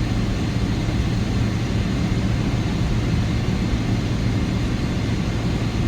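Steady cabin noise of a Boeing 777-300ER with its GE90 engines running, heard inside the passenger cabin: an even low hum under a broad rushing noise that does not change.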